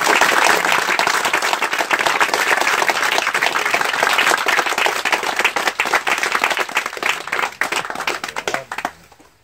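Crowd of guests clapping, the applause thinning and dying away near the end.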